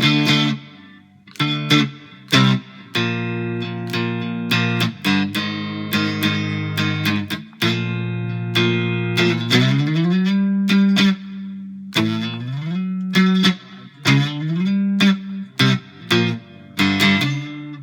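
Homemade cigar box guitar played through a modeling amp: strummed chords that ring on, with notes sliding up in pitch three times in the second half.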